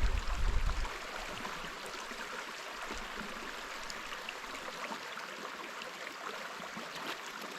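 Steady rush of creek water flowing, with a low rumble in the first second.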